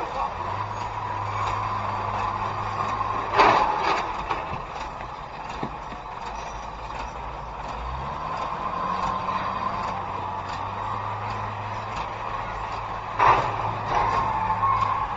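Street traffic with a steady low engine idle hum, broken by two sudden loud bangs about ten seconds apart.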